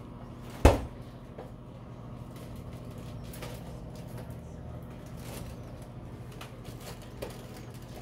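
Maytag over-the-range microwave oven running with a steady hum while a bag of popcorn cooks inside. A single sharp knock sounds under a second in, then a few faint, scattered pops as the first kernels begin to pop.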